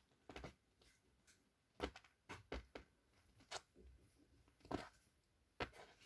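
Month-old kittens moving about and playing: faint, irregular soft taps and rustles, a handful of them spread over a few seconds.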